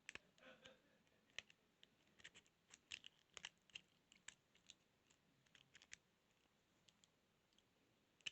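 Faint, irregular metallic clicks and scratches of a lock pick and tension tool working the pins inside a lock, frequent for about six seconds, then only a few.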